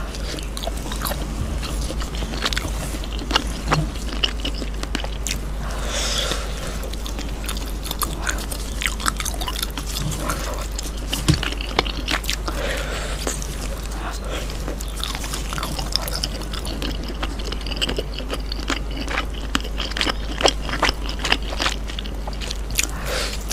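Close-up eating sounds of grilled cheese being bitten and chewed, with many short sharp crunchy and sticky clicks throughout, over a steady low hum.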